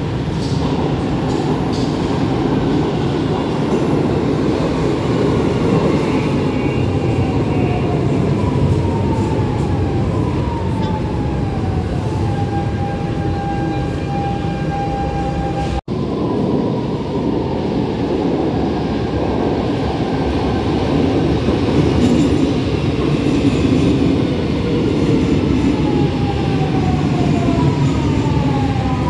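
Lisbon Metro train moving along the platform: a steady rumble of wheels on rail with an electric drive whine that slides down in pitch again and again, then holds a steady tone as the train slows. The sound cuts off abruptly about halfway through, and the same rumble and falling whine follow again.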